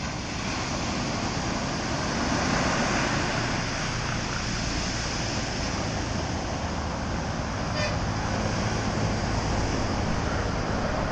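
Surf breaking and washing up a sand beach, a steady rushing, with wind buffeting the microphone. A short faint tone sounds about eight seconds in.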